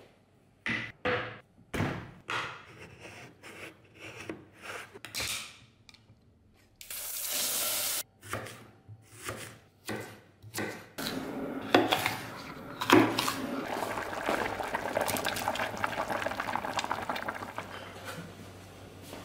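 Food being prepared in a kitchen with a bayonet knife. First comes a run of separate knife cuts and knocks on a wooden board, with one short burst of hiss partway through. Then a steady watery noise with pots and scattered clinks runs through the second half.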